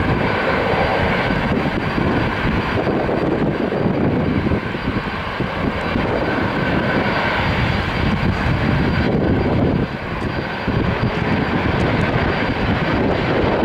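Boeing 737-800's CFM56 jet engines running as the airliner rolls out along the runway after landing: a loud, steady rumble with a faint high whine over it.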